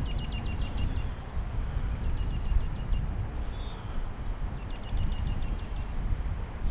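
A small songbird singing a short trill, a quick string of high notes about a second long, repeated three times about every two seconds, over a steady low rumble.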